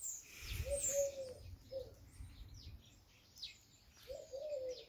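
Birds singing: several short, high chirps that sweep downward, and a few lower arched notes.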